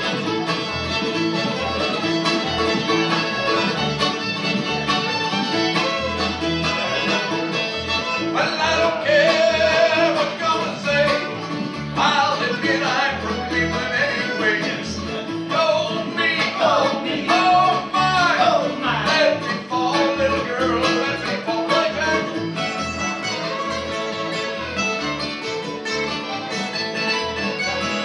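Acoustic string band playing a fiddle tune live: fiddle, button accordion, mandolin, two acoustic guitars and upright bass, the bass keeping a steady beat.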